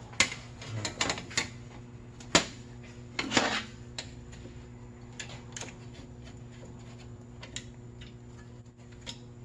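Metal clanks and clinks of a clamp and steel parts being handled and set in place for welding, the loudest knock a little over two seconds in and a short scrape around three and a half seconds. After that only scattered light ticks over a steady low hum.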